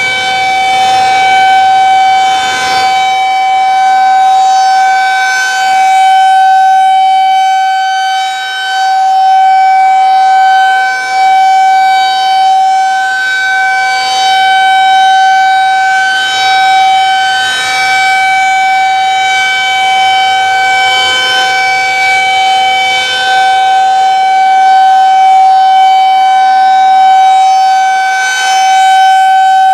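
Federal Signal 2001 SRNB rotating tornado warning siren sounding its steady alert tone for a monthly test. The pitch holds level at full speed while the loudness swells and fades as the rotating head sweeps past.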